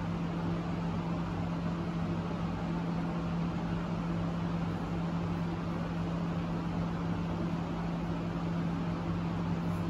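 A steady low machine hum, one constant tone under an even hiss, with no change in level.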